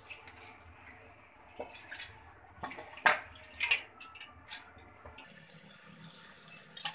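Split chickpeas (chana dal) tipped by hand from a steel bowl into an aluminium pressure cooker, the grains pattering and rustling, with a few sharp knocks, the loudest about three seconds in.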